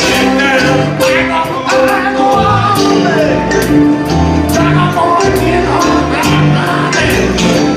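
A band playing an upbeat song with a steady drum beat, a bass line and singing.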